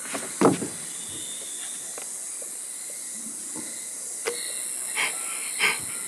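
Steady high-pitched hiss with a few short knocks, the loudest about half a second in and two more near the end, and faint thin tones joining from about four seconds in.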